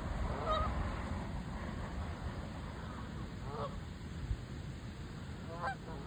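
Canada geese honking: three short honks, about half a second in, near the middle, and near the end, over low wind rumble on the microphone.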